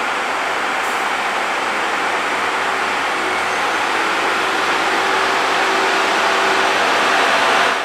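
On-track rail engineering machine running as it moves slowly along the track: a loud, steady mechanical noise of engine and machinery with a faint hum beneath, growing slightly louder toward the end.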